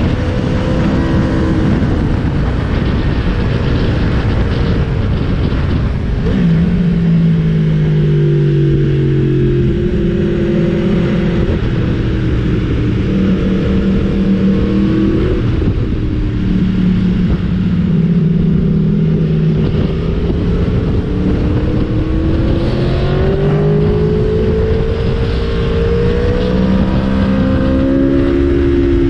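Aprilia Tuono V4's 65-degree V4 engine under hard riding, its pitch climbing and dropping again and again as it accelerates and eases off through the bends.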